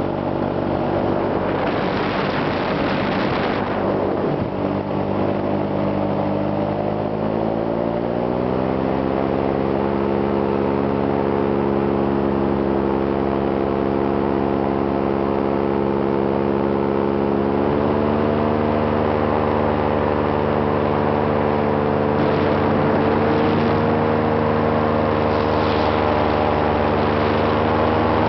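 Engine of a light aircraft running steadily in flight, heard from on board. Its pitch rises about eight seconds in and again about eighteen seconds in. A short rush of wind comes about two seconds in.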